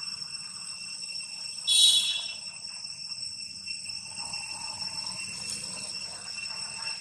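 Steady chorus of insects calling at several high pitches, with a short, louder high-pitched burst about two seconds in.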